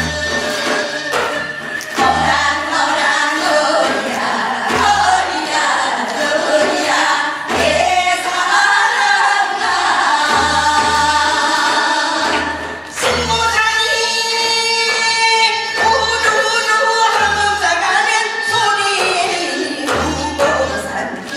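Korean Gyeonggi-style hwimori japga, a fast folk patter song, sung over a steady drum beat.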